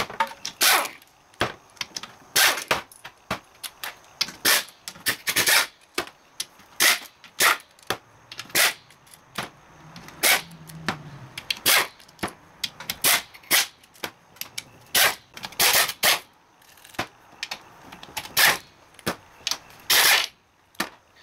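Pneumatic impact wrench hammering in short, repeated bursts as it spins out the transmission oil pan bolts one after another, about twenty bursts in all.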